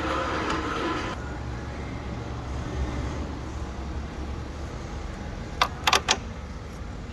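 Car engine running with a steady low rumble, louder for about the first second. A few sharp clicks come close together a little before the end.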